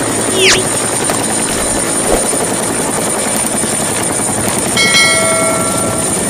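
Helicopter with a two-bladed main rotor hovering, engine and rotor running loud and steady. About five seconds in, a set of steady high tones sounds for about a second and a half over it.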